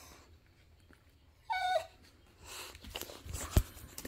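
A dog gives one short whine that falls in pitch about a second and a half in, then scuffling and rustling noises follow, with a sharp knock near the end.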